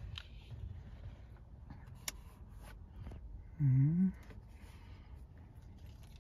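A man's short wordless hum, rising in pitch for about half a second, a little past halfway, over faint handling noise; one sharp click about two seconds in.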